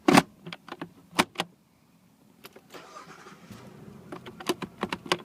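Sharp plastic clicks from the shift lever and its knob button on a 2003 Nissan Xterra. About three seconds in, the engine starts and idles under a run of quick clicks as the button is worked, with the shifter still sticking in park.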